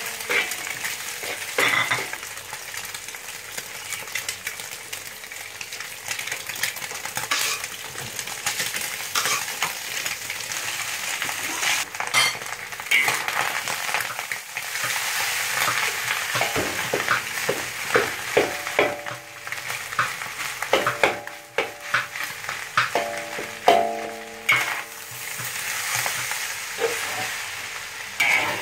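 Stir-frying in a wok: egg and cooked rice sizzling in hot oil while a metal spatula scrapes and knocks against the pan, making frequent sharp clicks over a steady hiss.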